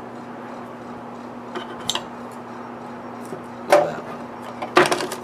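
Small objects being handled during hand wiring work: a few light knocks and clinks, then two louder clattering knocks near the end, over a steady low hum.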